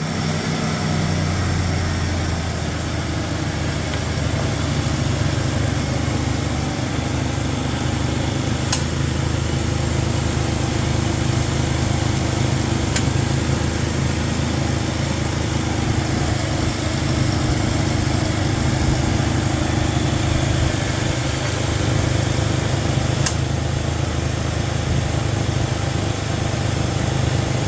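Ford Explorer Sport Trac's 4.0-litre V6 idling steadily, its accessory drive running on a newly installed serpentine belt, tensioner and idler pulley. A few faint ticks sound over the idle.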